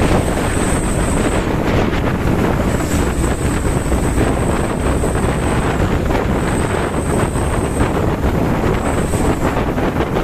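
Wind buffeting the microphone over the steady rumble of a moving vehicle's engine and road noise. A thin, high whine comes and goes several times.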